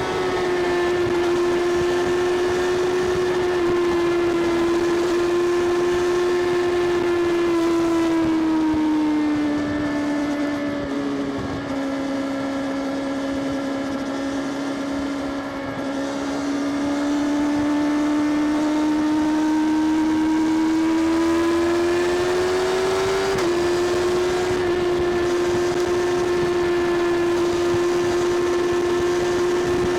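Kawasaki Ninja ZX-6R's inline-four engine and exhaust holding a steady, high-pitched drone while riding. The pitch eases down about ten seconds in, then climbs back up about twenty seconds in.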